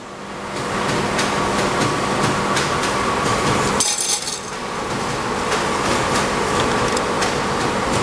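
Copper-aluminium tube butt welding machine running: a steady mechanical hum with irregular sharp clicks and knocks. About four seconds in, the low hum briefly drops out under a short high-pitched hiss.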